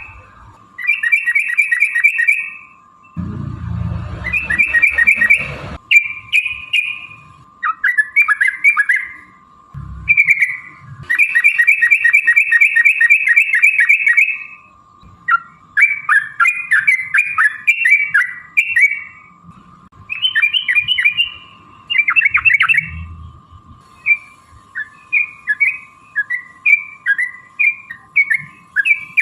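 Yellow-vented bulbuls (trucukan) calling in a loud, rolling chatter: fast bubbling trills broken by quicker, choppy phrases. A faint steady tone runs under the calls, and there is a low rumble about three to six seconds in.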